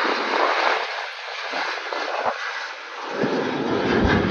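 Jet engine noise from a Boeing 717's rear-mounted Rolls-Royce BR715 turbofans as the airliner climbs out after takeoff: a steady rushing roar. A heavier, uneven low rumble swells in about three seconds in.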